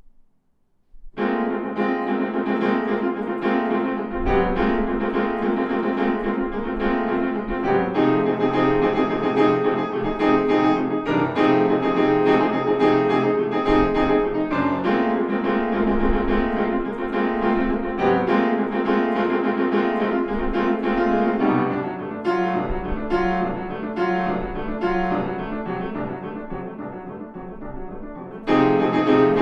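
Longato grand piano played solo. It starts about a second in after a pause with a dense, loud classical passage. It grows softer over the last several seconds, then comes back loud just before the end.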